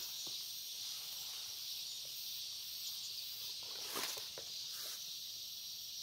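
Steady high chirring of insects in grass and weeds, with faint rustling of stems, loudest about four seconds in.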